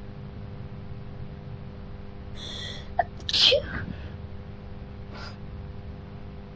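A woman sneezes once, about three seconds in: a short in-breath, then a sharp, loud sneeze with a falling voiced tail. It is one sneeze in an allergic sneezing fit set off by a cat allergy.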